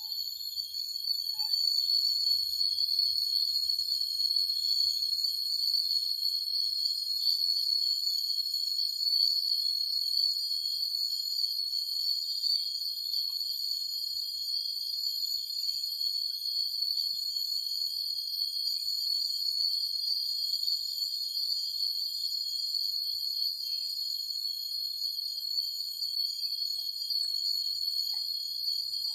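A steady, high-pitched chorus of night insects, several shrill tones held without a break, growing louder about a second in.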